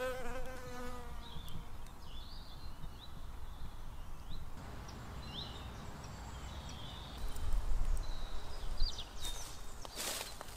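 A flying insect buzzes close by for about the first second, its pitch wavering, then fades out. Short high chirps follow, and footsteps through grass come in near the end.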